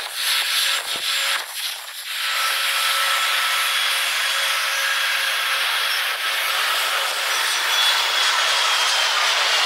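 Airliner jet engines at takeoff power, heard sped up four times: a steady high rushing hiss with faint thin whining tones and no low rumble. The first two seconds are rougher and uneven, with a couple of clicks, before the hiss settles.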